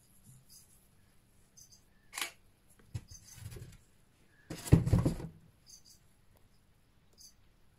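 Rustling and knocking of a handheld phone being moved, loudest in a burst a little under five seconds in, with a few smaller clicks before it. Faint, short, high double chirps recur every second or so.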